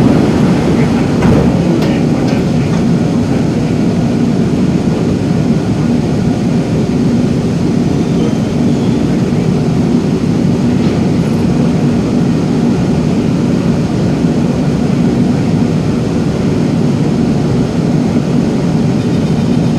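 Steady hum of a Singapore MRT train standing at an underground platform with its doors open: its air-conditioning and onboard equipment drone under the noise of the station.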